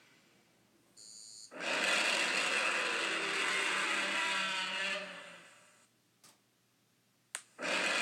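Kaiju monster sound effect: a brief high tone, then a loud rasping cry with a wavering pitch that holds for about four seconds and fades away. A short click follows, and another loud effect starts near the end.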